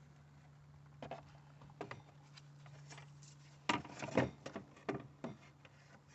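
Hard plastic clicks and knocks as a car's engine air box is handled and set back into place, with the loudest cluster of knocks about four seconds in. A steady low hum runs underneath.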